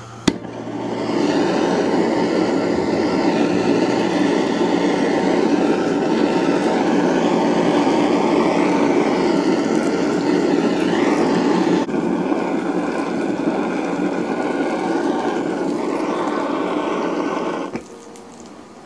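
Kitchen blowtorch flame hissing steadily as it caramelizes sugar on top of steamed cakes; it dips briefly partway through and cuts off near the end.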